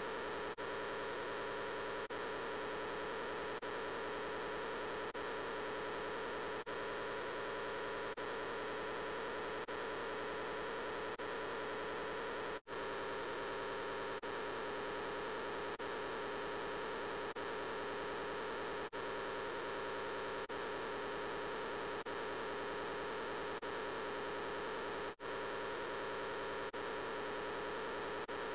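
Dense, steady drone like static or mains hum: Peppa Pig's "I'm Peppa Pig" voice clip stacked on itself so many times that no words come through. A faint pulse recurs about every second and a half, and the sound cuts out for an instant twice, about 12 and 25 seconds in.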